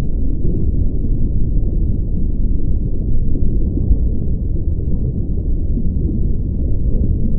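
Steady, deep, muffled rumble with no high sounds at all, heard as an underwater-style ambience.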